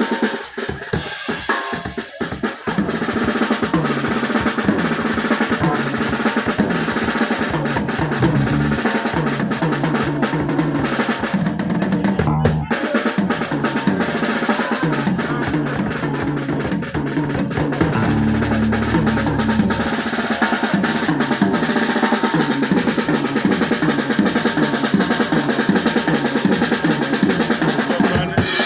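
Live band playing, with a drum kit prominent: snare, bass drum and cymbals over a moving bass line.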